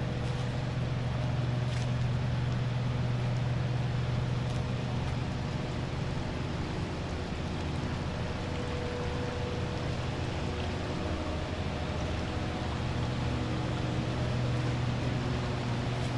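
Steady low rumble of distant city traffic, with the shallow stream running in the concrete channel underneath.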